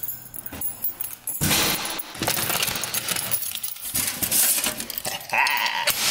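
Keys on a lanyard jangling and clinking, with rustling handling noise and footsteps. A short squeak comes near the end.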